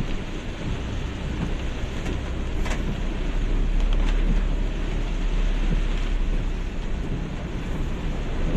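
Heavy typhoon rain and floodwater rushing across a street: a loud, steady rushing noise with a low rumble underneath.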